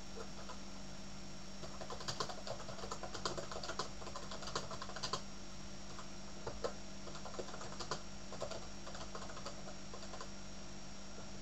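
Typing on a computer keyboard: keys clicking in quick, irregular runs that thin out and stop about nine seconds in, over a steady faint hum.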